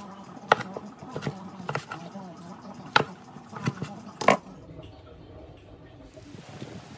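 A chef's knife chopping grilled sausages on a plastic cutting board: about six sharp knocks of the blade hitting the board, unevenly spaced, over the first four and a half seconds.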